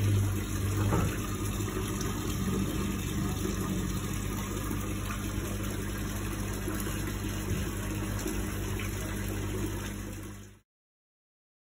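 Water from a barrel-style garden fountain pouring and splashing steadily into the basin below, with a steady low hum. It cuts off abruptly near the end.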